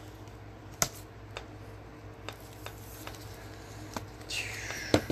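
An acetate trading card being handled and slid into a rigid plastic top loader by gloved hands: scattered light clicks and taps, and a brief sliding scrape near the end. Under it runs the steady hum of an electric fan.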